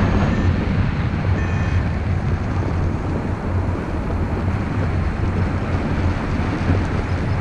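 Steady wind buffeting the microphone of a paraglider pilot's action camera as he glides in low over the landing field, a deep, even rush with no break.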